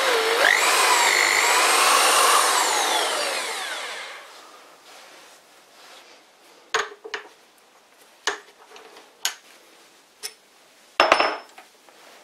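Small electric tool-post drill spindle running with a high whine while center-drilling into the steel arbor; the whine dips briefly and recovers, then winds down and fades out. After that come a few sharp metallic clicks and clinks of tool handling, the loudest cluster near the end.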